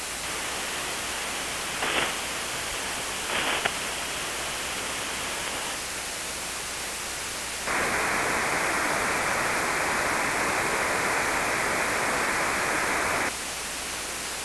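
Shortwave receiver static and hiss from a Hermes-based ANAN-10 software-defined radio as it is switched between receivers on different amateur bands. Two short bursts come near 2 and 3.5 seconds in. The hiss grows louder and fuller from about 8 seconds in and drops back about 13 seconds in.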